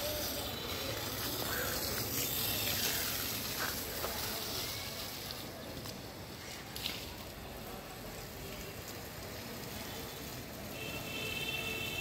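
Water spraying from a hose onto a brick wall: a steady hiss, loudest in the first few seconds and weaker after.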